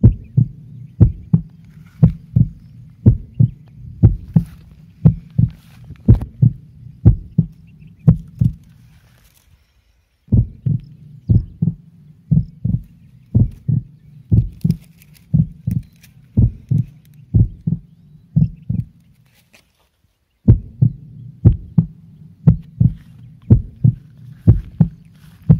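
Heavy low thumps about twice a second over a steady low rumble: footsteps jolting a handheld phone as it is carried through the field. The thumps cut off twice for about a second.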